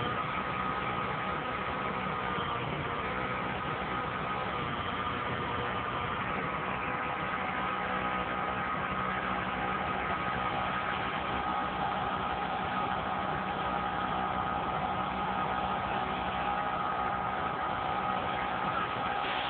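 Delivery truck's engine running steadily with a constant whine over it as its hydraulic lift lowers a PODS storage container to the ground.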